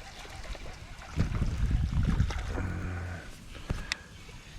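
Low thumps and rumbling handling noise against a kayak for about two seconds, as a small largemouth bass is landed and held, followed by a few sharp clicks near the end.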